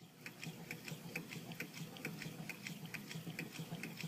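Low temperature differential Stirling engine running, its mechanism ticking steadily in light paired clicks, about two pairs a second.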